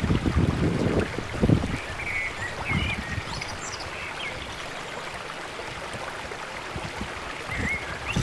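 Rainwater running as it drains out of a flooded paddy field, a steady flowing wash, with wind buffeting the microphone in gusts during the first second and a half.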